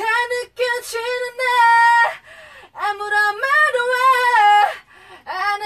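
A single high voice, most likely female, sings a cappella with no backing instruments. It holds long notes with slides and bends in three phrases, breaking briefly between them.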